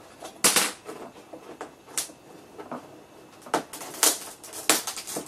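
Sharp clicks and snaps of plastic as fingers pry up the edge of a curved monitor's glued-in LCD panel. There are about five of them spread out, the loudest about half a second in.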